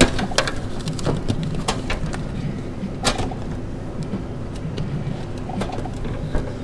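Aluminium cans clinking and knocking as they are taken out of a vending machine's pickup tray and handled: a scatter of sharp taps, the loudest at the very start and about three seconds in, over a steady low hum.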